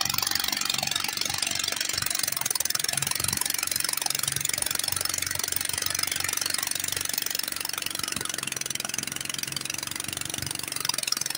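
Small outboard motor on a wooden boat running steadily under way, with a constant high hiss over the engine's low, even beat.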